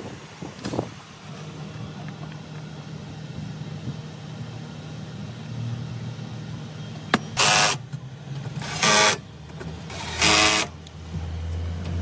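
Cordless drill-driver running in three short bursts of about half a second each, driving screws, with a sharp click just before the first.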